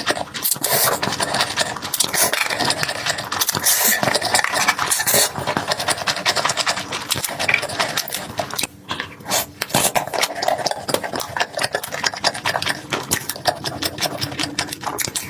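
Close-up eating sounds: rapid chewing with dense crackling, crunching and smacking clicks, easing off briefly in the middle.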